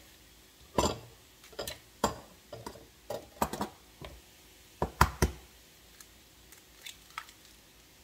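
Eggs being cracked against the rim of a bowl: a string of sharp taps and knocks, the loudest cluster about five seconds in, then a few faint ticks.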